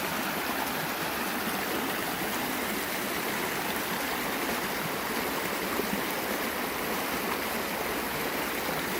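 Rain-swollen creek in flood, running fast and higher than usual: a steady rushing of water.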